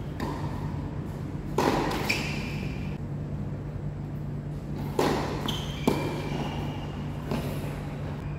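A tennis rally: about five sharp pocks of rackets striking the ball and the ball bouncing, at uneven gaps, some with a brief ringing ping.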